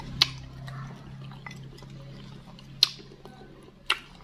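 Eating bakso meatball soup: three sharp, wet clicks from chewing and from the wooden spoon and fork working in the broth, over a steady low hum.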